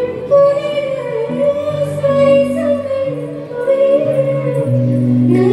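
A woman singing a sustained, gliding melody into a microphone, backed by a live band with held low notes underneath.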